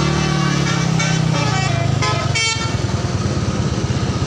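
Tour bus telolet horn playing a quick multi-note tune over a running engine; the horn notes stop about two and a half seconds in, leaving the engine.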